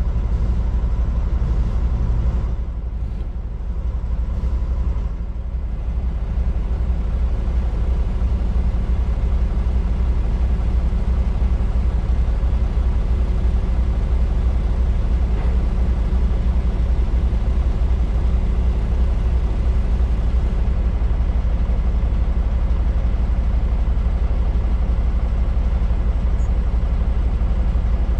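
Heavy-haul truck's diesel engine running steadily as a low drone, easing off briefly about three to five seconds in.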